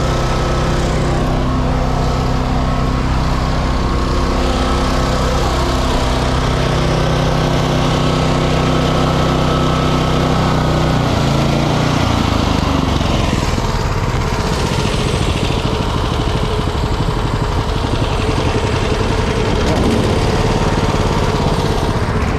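Diesel engine of an older Freightliner truck running just after a no-start, having fired up on freshly charged batteries. About halfway through, the steady engine note falls in pitch and gives way to a rougher, more uneven running sound.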